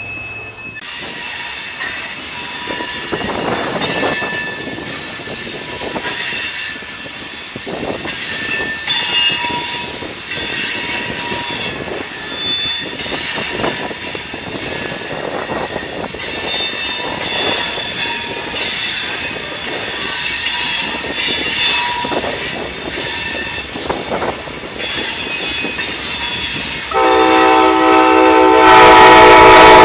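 Freight train's grain hopper cars rolling through a curve, their wheels squealing in shifting high-pitched tones, with scattered knocks from the wheels. Near the end a train horn blows a loud chord for about three seconds.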